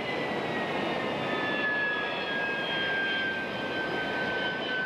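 Harrier jump jet's Rolls-Royce Pegasus turbofan running on deck: a steady jet rush under a high whine that falls in pitch over the first two seconds or so, then holds steady.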